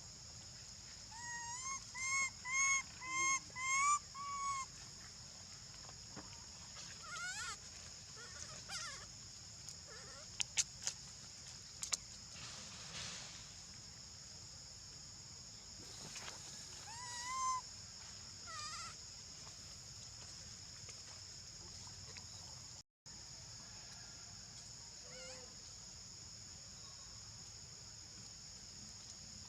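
Monkeys calling: a quick run of about six short, slightly rising calls, then scattered single calls. A steady high-pitched drone runs underneath, with a few sharp clicks in the middle.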